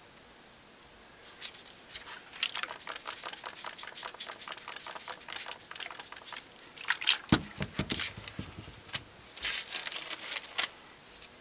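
Small handling noises from gloved hands and a cup of potting soil: a quick run of soft clicks and rustles as a plastic trigger spray bottle mists the soil, and a single thump about seven seconds in. Near the end a small plastic zip bag crinkles.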